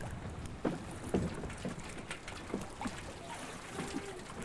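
Water lapping against a dock and small moored boats, with a few soft knocks over a steady hiss.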